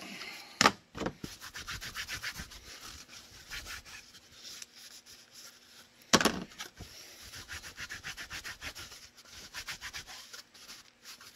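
Microfiber cloth wiping down vacuum-formed plastic magazine holders in quick rubbing strokes. Two sharp knocks, about a second in and the louder about six seconds in, as the holders are set down on the cutting mat.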